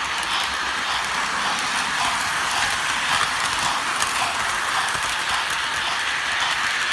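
Model train running along three-rail track, heard from on board: a steady mechanical whir and rattle with faint scattered clicks.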